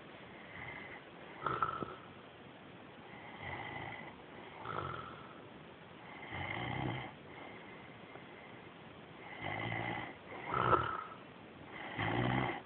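A man snoring on a couch: a rasping snore on the breaths, coming every one and a half to three seconds, with two sharper, louder snores among them.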